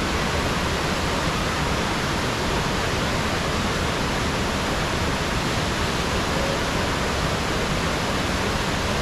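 Waterfall cascading over wide rock slabs into a pool, a steady, even rush of water.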